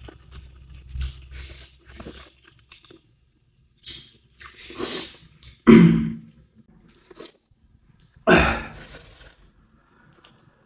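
A person chewing and crunching food in irregular bursts, loudest about six and eight seconds in.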